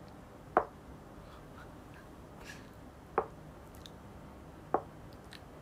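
Quiet room tone with three short, sharp clicks spaced one to two seconds apart, the first the loudest.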